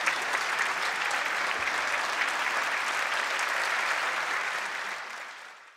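Audience applauding: dense, even clapping that fades out near the end.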